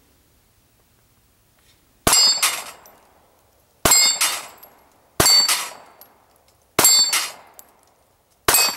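Five shots from a Kel-Tec P380 .380 pocket pistol, starting about two seconds in and spaced about one and a half seconds apart. Each shot is followed at once by the clang and ring of an 8-inch steel plate being hit and knocked down.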